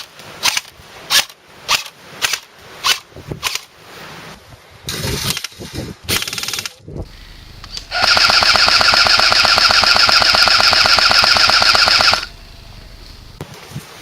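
Airsoft electric guns firing. About seven single shots come roughly half a second apart, then a four-second full-auto burst with a steady whine, which is the loudest part.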